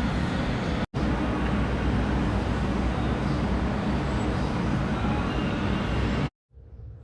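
A car running, with steady engine and road noise. The sound drops out for an instant just under a second in and cuts off abruptly about six seconds in.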